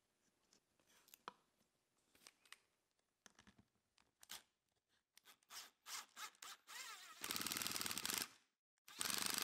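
Small clicks of a machine screw being handled and set into a pilot hole in plywood, then a power drill driving the 1-inch #8 machine screw into the 7/64-inch hole, running in two bursts of about a second each near the end.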